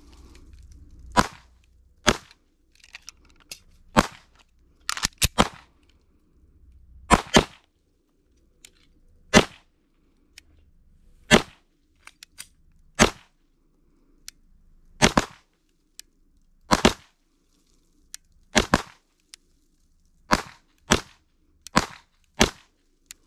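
Slow, untimed pistol fire: about twenty single shots, mostly a second or two apart, with a few coming in quick pairs and triples. It is a slow-fire qualification string at five target circles.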